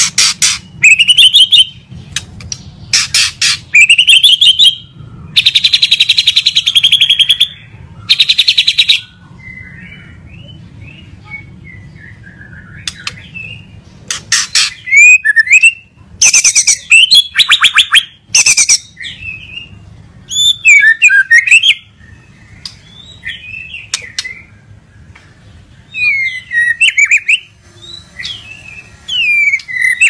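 White-rumped shama singing: loud bursts of rapid, rattling repeated notes alternate with sliding whistled phrases, with short pauses between them and a softer, quieter run of notes about halfway through.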